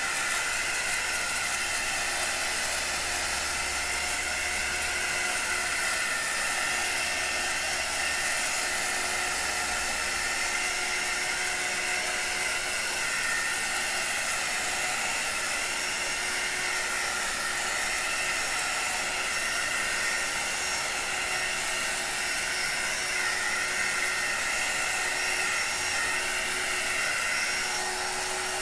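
Handheld Wonder Wand heat wand running steadily, its fan blowing hot air over wet acrylic paint.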